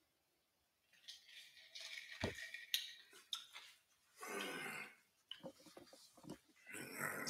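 Faint clicks, taps and rustling close to the microphone as someone handles things on returning to it, with a short breathy noise about four seconds in.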